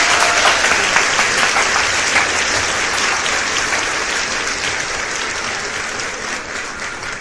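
Audience of classmates applauding, dying away over several seconds.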